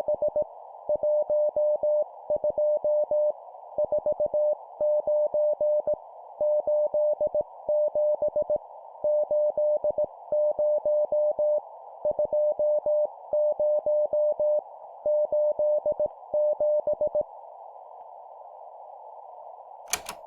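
Morse code sent as a single steady beep at 17 words per minute, groups of dots and dashes spelling numbers, over a steady band of hiss. The keying stops about three seconds before the end, leaving only the hiss, and a sharp click comes near the end.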